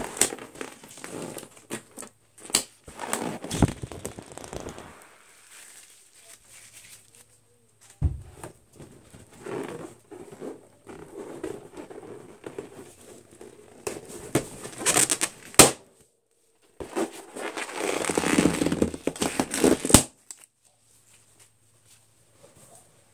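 Latex balloons being popped with fingernails: rubbing and squeaking of fingers and nails on the rubber, broken by several sharp pops, the loudest a little past the middle and about twenty seconds in.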